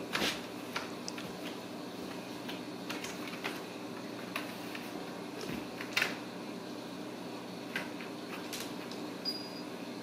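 Two kittens scuffling around a cardboard scratcher on a tile floor: scattered taps, scratches and soft thumps from paws and claws, the loudest right at the start and about six seconds in, over a steady fan-like hum.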